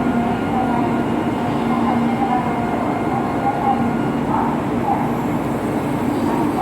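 Busy Shinkansen platform ambience: a steady station and train hum with a crowd's chatter mixed in.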